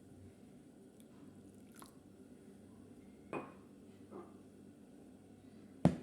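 Kitchenware being handled: a few separate knocks and clinks, the last one near the end the loudest, over a faint steady hum.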